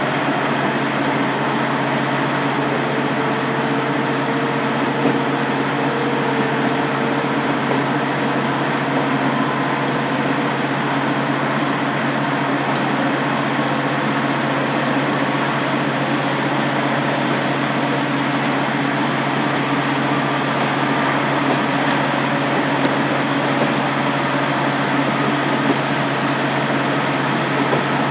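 Sound inside a KiHa 47 diesel railcar, its original DMF15HSA six-cylinder diesel engine running steadily under the running noise of the car, with a faint whine that drifts slowly in pitch.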